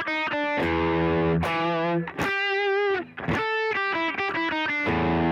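Les Paul electric guitar playing a rhythm riff: short runs of single notes broken by quick strummed chords, with one held note shaken with vibrato about two and a half seconds in.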